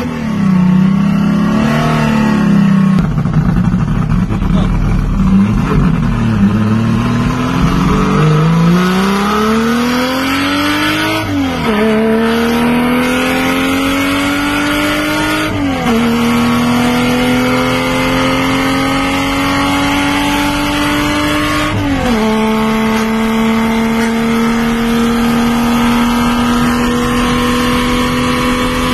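Ford Falcon Sprint engine under full acceleration, heard from inside the cabin. Its note rises and falls unevenly for the first several seconds, then climbs steadily through the revs, dropping sharply at three upshifts about 11, 16 and 22 seconds in, and pulls slowly higher in the last gear.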